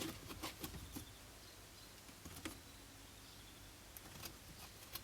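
Faint, scattered clicks and light taps of a piece being handled and pressed into place in a window frame. Most fall in the first second, with a few more later.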